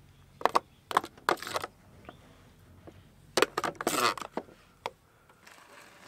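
Small hard objects being handled, clicking and clattering in four short clusters, the busiest about three and a half to four and a half seconds in, over a low steady hum that stops about five seconds in.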